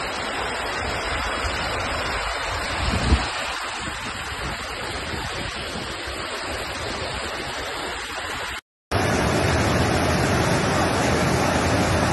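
Rushing floodwater, a steady wash of water noise, with a single thump about three seconds in. After a brief drop-out about two-thirds of the way through, muddy floodwater cascading down a stepped channel takes over, louder and steadier.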